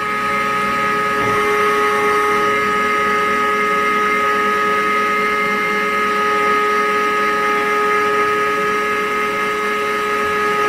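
Ladies First automatic chicken coop door's electric drive motor running steadily as it lowers the door panel, with a constant whine.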